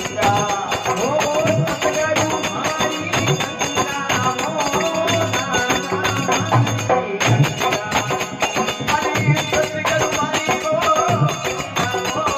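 Marwari devotional bhajan performed live: a man singing over harmonium, with a dholak drum and small hand cymbals keeping a steady, driving beat.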